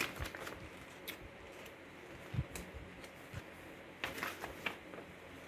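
Paper pages of a thin instruction booklet being flipped and rustled by hand, in short scattered bursts, the busiest about four seconds in.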